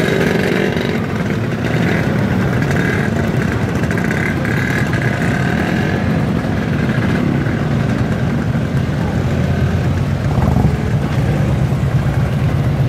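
Many classic and vintage-styled motorcycle engines idling and running as bikes ride slowly past. It is a steady, dense low rumble that grows stronger about ten seconds in.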